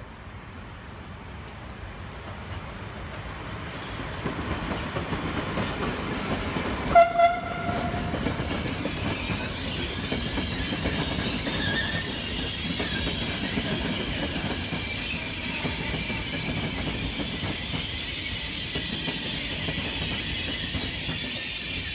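Trenitalia locomotive-hauled passenger train arriving: the rumble grows over the first few seconds, a short double horn blast sounds about seven seconds in, then the coaches roll past with a steady rumble, a clatter of wheels over rail joints and a high wheel squeal.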